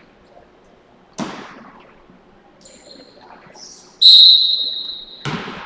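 A basketball bangs on the hardwood court with a long gym echo, then a referee's whistle blows one long, loud blast about four seconds in, followed by another echoing bang near the end.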